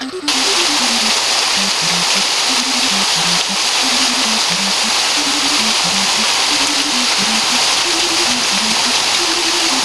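Steady rush of a waterfall's falling water, cutting in just after the start, with background music playing a simple melody underneath.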